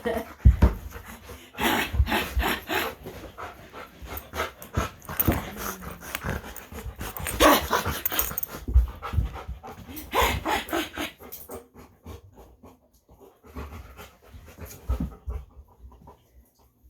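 A dog panting and scuffling during rough-and-tumble wrestling play, in irregular bursts that thin out in the last few seconds.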